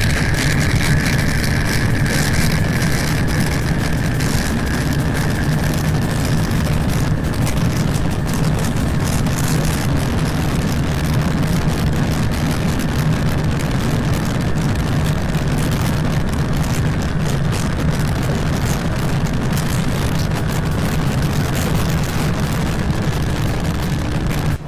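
Bajaj Pulsar NS160's single-cylinder engine running steadily while the motorcycle cruises at about 100 km/h, under a constant rush of wind and road noise.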